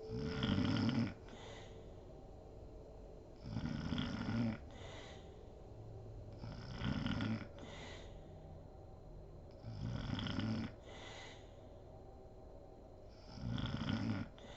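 A sleeping woman snoring: five snores about three seconds apart, each followed by a short breathy exhale.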